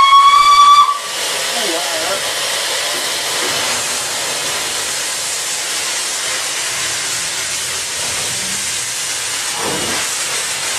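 Steam locomotive whistle sounds one short blast of about a second, a single note rising slightly in pitch. It is followed by a steady hiss of steam on the footplate.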